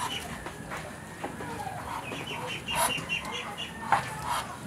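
Backyard poultry calling: soft clucks and runs of quick, evenly spaced high chirps, with a sharp tap near the end.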